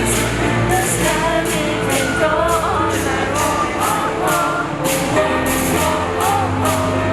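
Pop song played loud through a concert sound system during a sound check: a lead vocal sings a wavering melody over sustained bass notes and a steady beat with cymbal strokes about twice a second.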